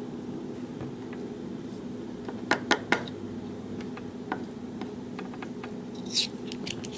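Small metal lock parts (pins and springs from a gutted pin-tumbler lock) being handled and set down with light clicks. There are three sharp ticks close together about two and a half seconds in and a few more near the end, over a steady low hum.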